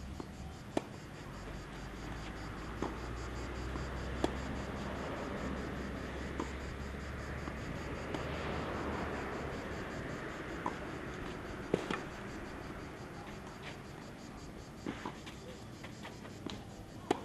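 Tennis rally on a clay court: sharp pops of racket strings striking the ball every few seconds, the loudest from the near player, over a steady outdoor background hiss.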